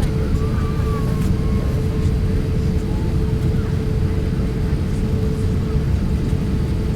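Cabin noise of an Airbus A350-1000 taxiing: a steady low rumble from its Rolls-Royce Trent XWB engines at taxi power and the cabin air, with a constant hum running through it.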